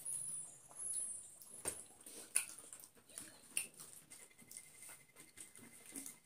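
Quiet eating sounds: soft clicks and patters of fingers working rice and chicken on plates, with mouth sounds of chewing.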